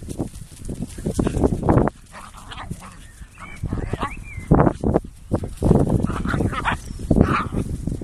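Pyrenean Shepherd dogs play-fighting, with irregular bursts of barking and several wavering high-pitched whines.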